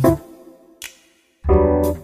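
Background keyboard music. One phrase dies away soon after the start, and after a short gap a new phrase with a deep bass chord comes in near the end.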